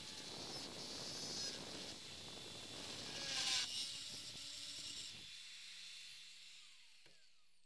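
Faint hiss of an electric drill in a drill stand boring a hole through a metal tube, swelling about three and a half seconds in, then fading away.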